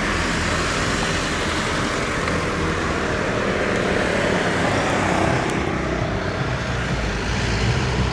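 Steady motor-vehicle rumble: engine drone with road noise.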